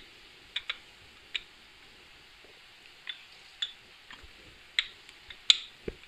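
Wooden rolling pin rolling out a round of dough on a plastic-covered surface, giving about ten sharp, irregularly spaced clicks and knocks as the pin taps and shifts, with a duller thud near the end.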